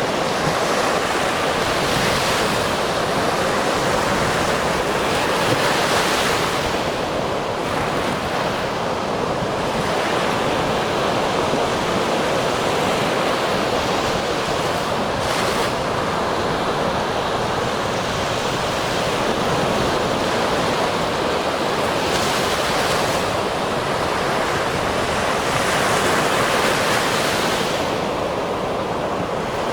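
Ocean surf: waves breaking and washing in with a continuous rush, each breaker swelling up and fading away every few seconds.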